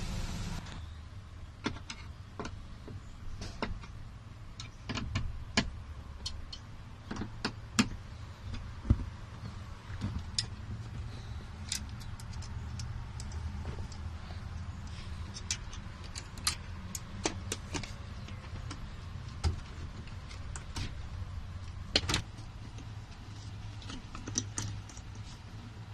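Irregular clicks and knocks of hand work refitting the power sliding door's control actuator, over a steady low hum.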